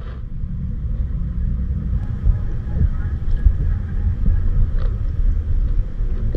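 Steady low rumble of moving river water picked up by a submerged camera, with a few faint clicks.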